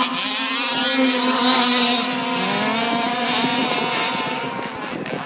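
Several radio-controlled model cars racing, their small motors buzzing at high revs, with pitch rising and falling as they speed up and slow down. The sound fades toward the end as the cars pull away.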